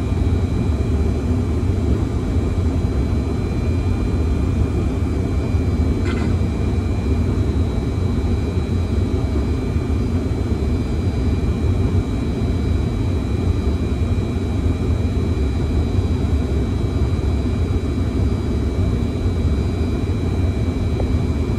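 Steady cockpit noise of a Fokker 100 on approach with the gear down: a dense low rumble of airflow and Rolls-Royce Tay turbofans, with two faint steady high-pitched tones over it. A single click sounds about six seconds in.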